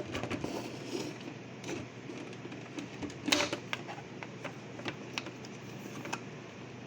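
Scattered light clicks and knocks of plastic toy pieces being handled. The loudest comes about three seconds in, over a steady low hum.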